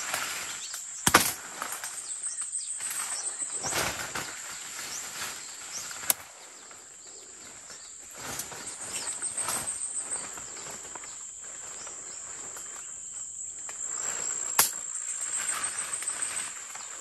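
Footsteps pushing through dense leafy undergrowth, leaves and stems rustling in uneven swishes, with a few sharp clicks about a second in, around six seconds and near the end. A steady high insect drone runs underneath.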